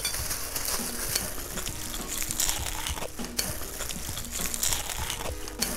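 Crunching bites into the crisp wet-batter crust of a whole deep-fried rotisserie chicken: irregular crackling crunches. A simple background melody plays underneath.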